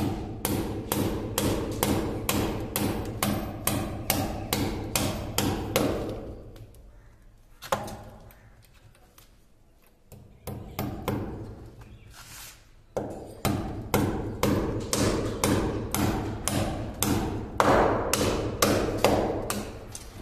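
Hammer striking a nail into a wall to fix a clip holding a PVC electrical conduit pipe, in sharp regular blows about two a second, with a pause of a few seconds midway before the hammering resumes.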